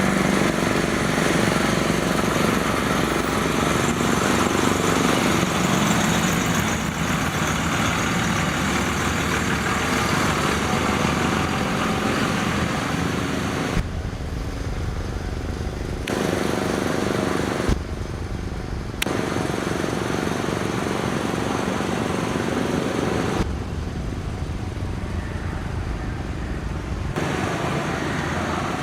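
Antique farm engine running steadily, with a deep low rumble that comes to the fore three times for a few seconds each.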